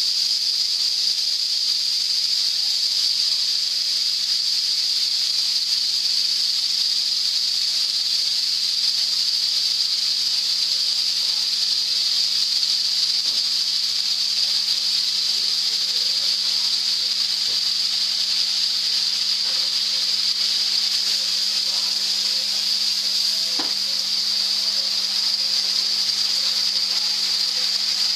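Marinated meat pieces sizzling steadily in a hot frying pan, a constant frying hiss.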